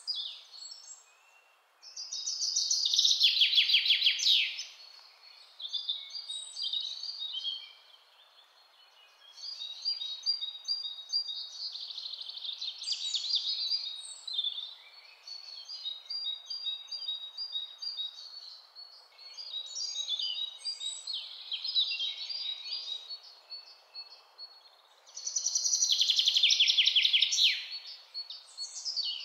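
Birdsong recording: birds singing and chirping, with loud fast trills about two seconds in and again near the end, over a faint steady background hiss.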